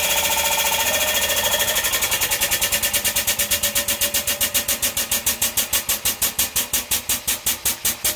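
Pump of a 20-ton hydraulic shop press running under load as the ram squashes a 1 kg silver bar: a fast, even pulsing beat that slows steadily, to about seven beats a second near the end, as the press works harder against the metal.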